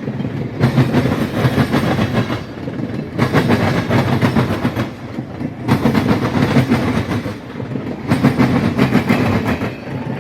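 Train cars rolling past close by, the wheels clattering over the rail joints. The noise swells and dips about every two and a half seconds as each car goes by.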